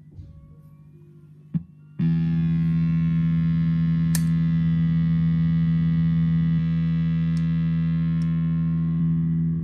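Guitar fuzz pedal switched on with a click, about two seconds in starting a loud, steady distorted drone with many overtones that holds to the end; a few small footswitch clicks sound over it.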